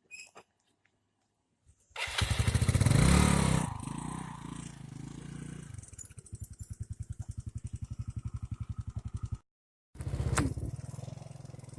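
A motorcycle engine starts about two seconds in, revs briefly, then settles to a steady, even idle. The sound drops out for half a second near the end and comes back.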